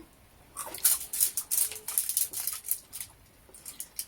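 Crunchy bites and chewing of fried food: a quick run of crisp crackles from about half a second to two and a half seconds in, and a few more near the end.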